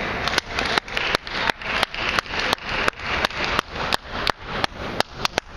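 Table tennis ball clicks repeating at a steady rhythm, about three a second, over the hall's background noise.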